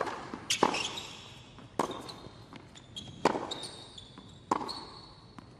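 Tennis rally on a hard court: a string of sharp racket-on-ball hits, about one every second and a half, with short high shoe squeaks on the court in the second half.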